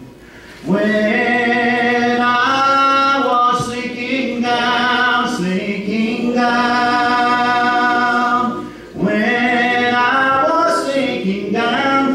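A man singing a slow hymn unaccompanied, in long held notes that slide from pitch to pitch, with a short pause for breath about two-thirds of the way through.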